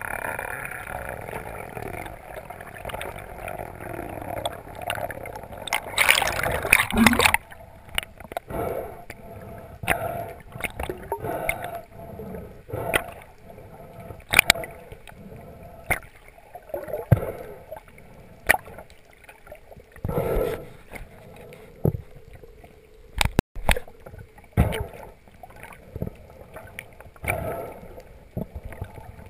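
Underwater water noise heard by a submerged camera: uneven gurgling, a loud rushing burst lasting about a second some six seconds in, then scattered short knocks and clicks.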